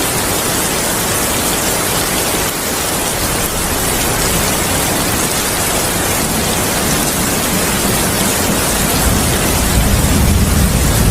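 Heavy rain falling steadily, with a low rumble of thunder swelling about nine seconds in.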